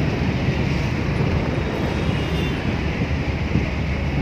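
Steady road and engine noise inside the cabin of a moving taxi at highway speed, a constant low rumble.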